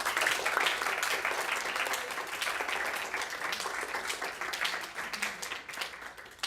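Audience applauding, a dense patter of many hands clapping that slowly thins out and fades near the end.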